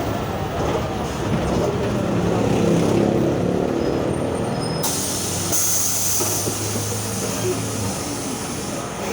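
VW 17-230 OD bus's MAN D0834 4.6-litre four-cylinder diesel pulling with the growl of its reconditioned ZF 6S-1010 gearbox. The growl comes from the rebuilt transmission. The pitch rises over the first few seconds, then settles to a steady drone, and a steady hiss joins about five seconds in.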